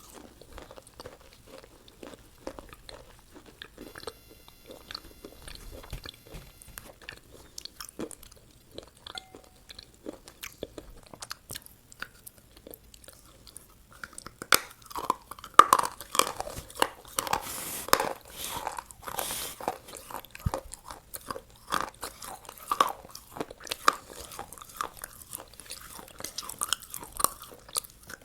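Close-miked eating of a McDonald's meal: biting, crunching and wet chewing, quiet and sparse at first, then louder and denser crunches from about halfway through.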